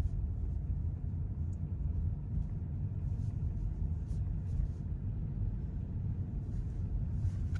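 Steady low rumble of a car driving, with faint light ticks over it.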